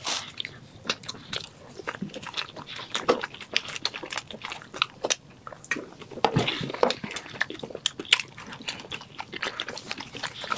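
Close-up chewing and biting of chicken shawarma wraps, with many short wet mouth clicks and smacks throughout. About six seconds in there are swallowing gulps as a can of soda is drunk.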